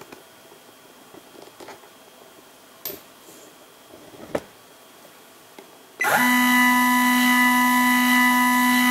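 Stepper motor driving a Sherline rotary table: a few soft clicks, then about six seconds in the motor starts, sweeping briefly up in pitch and then running with a loud, steady whine of several tones as the table indexes to the next division.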